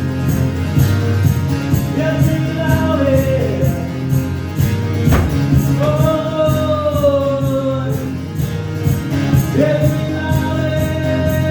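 Live song: a male singer holds long, gliding notes over steadily strummed guitar.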